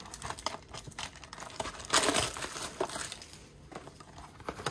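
Plastic shrink wrap being torn off a trading card box and crinkled, a run of irregular crackles with a louder burst about two seconds in.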